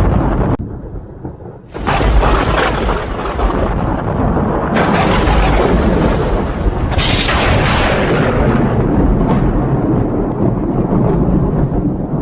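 Loud thunder: continuous deep rumbling, with new sharp cracks about five seconds in and again about seven seconds in, each fading back into the rumble. Just after the start the sound drops away suddenly, then returns abruptly about two seconds in.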